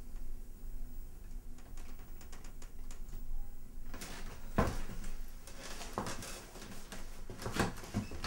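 Hurried rummaging for belongings: a few faint clicks, then from about four seconds in a run of louder knocks, clatter and rustling as things are grabbed from shelves.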